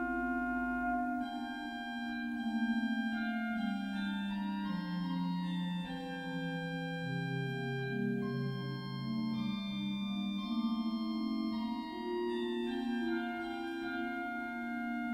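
Organ playing a slow, quiet chorale prelude on a Christmas hymn tune: held chords that change step by step, with a moving lower line. A deep bass note sounds until about a second in.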